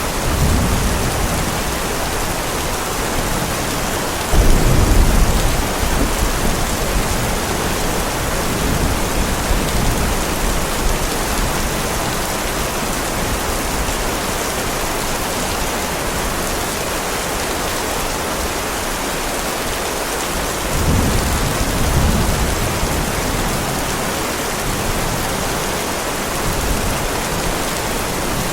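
Heavy rain falling steadily, with rolls of thunder rumbling low, the loudest about four seconds in and another near twenty-one seconds.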